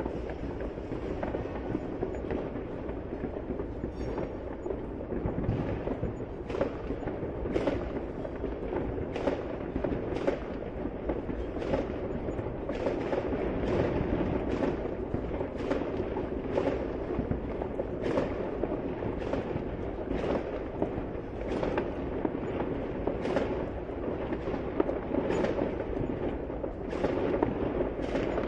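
New Year fireworks going off one after another, sharp bangs about once a second over a steady background din.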